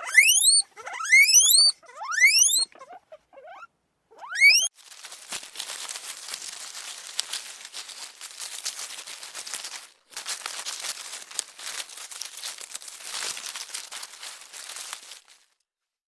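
A small animal's high squeals, each a quick upward-sliding whistle, come in short groups over the first four or five seconds. They are followed by about ten seconds of crinkling, rustling noise, with a brief break near the middle.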